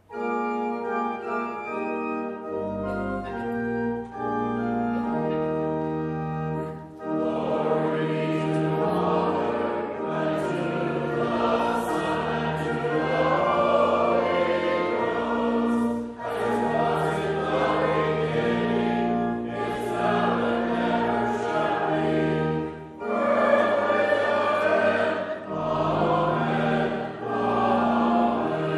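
Organ playing held chords, then choir and congregation singing a hymn with the organ from about seven seconds in, with short pauses between phrases.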